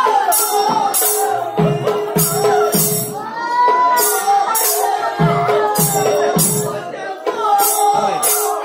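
Manipuri Nata Sankirtan: a group of voices chanting and singing while large hand cymbals (kartal) clash in a steady rhythm of about two strikes a second, pausing briefly around three to four seconds in.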